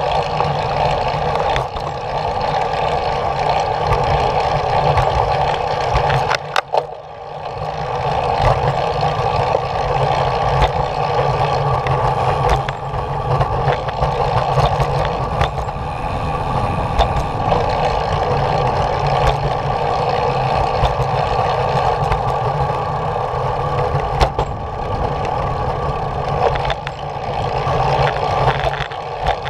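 Steady rolling noise of a small vehicle moving along a concrete path, dropping away briefly about seven seconds in.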